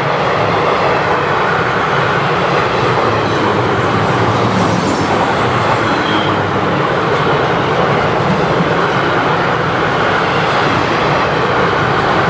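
Freight train of enclosed car-carrier wagons rolling past close by: a loud, steady noise of steel wheels running on the rails, with a brief high wheel squeal about six seconds in.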